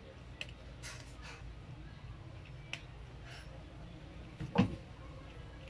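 Cat crunching dry kibble, with scattered small clicks and crackles, and one sharper knock about four and a half seconds in.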